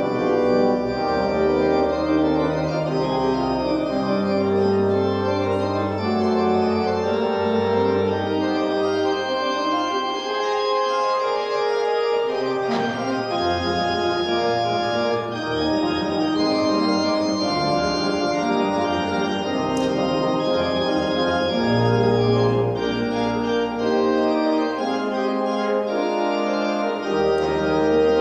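Organ playing slow, sustained chords over a bass line that steps to a new note every second or two.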